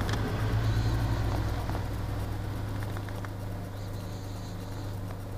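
A car engine running steadily, a low even hum, with broad road noise around it that eases off a little over the few seconds.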